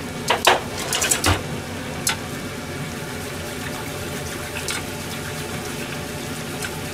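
A pot of chicken and napa cabbage cream stew simmering with a steady bubbling hiss, as it thickens with milk and potato starch. A utensil knocks against the pot several times in the first two seconds and once more about two-thirds through.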